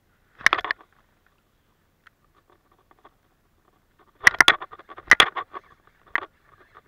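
Fishing rod and baitcasting reel being handled and worked: a few short bursts of dense rattling clicks, the loudest pair about four to five seconds in.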